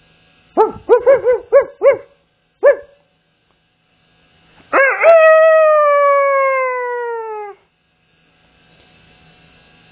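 Rooster calling: a quick run of about six short calls and one more after a brief pause, then a single long crow of about three seconds that slowly falls in pitch.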